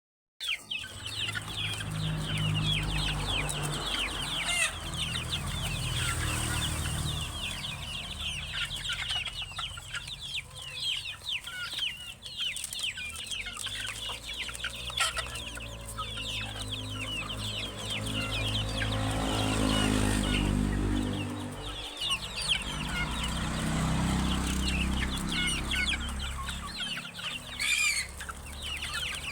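A flock of 80-day-old Darag native chickens clucking and calling continuously, many short overlapping calls, over a low steady hum.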